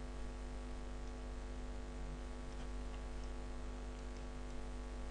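Steady electrical mains hum in the microphone recording, with a few faint clicks.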